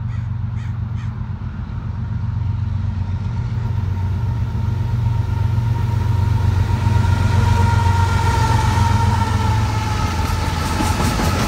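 Several Union Pacific diesel locomotives approaching and passing close by: a steady low engine drone with a higher whine, growing louder, the whine dropping slightly in pitch as the lead units go past.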